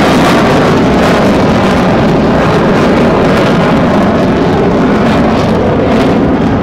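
Jet roar of an F/A-18F Super Hornet's two F414 turbofan engines as it flies past, loud and steady. The high hiss thins a little near the end.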